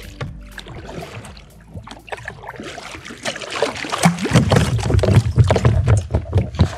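Kayak paddle strokes dipping and splashing in calm water, then from about four seconds in louder knocks and a low rumble as the paddle is laid on the plastic kayak and the fishing rod handled.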